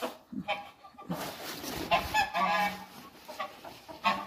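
Domestic goose honking, a run of short calls with the longest and loudest about two seconds in.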